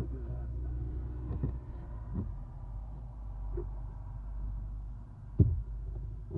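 Low steady rumble inside an owl nest box, with a few knocks and bumps against the box. The loudest is a single thump about five seconds in.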